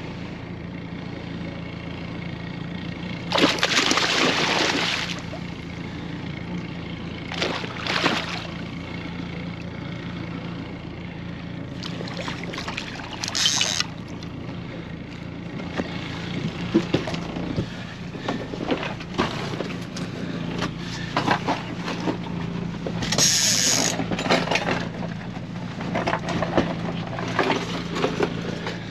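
Small boat's motor humming steadily, with several short bursts of splashing water.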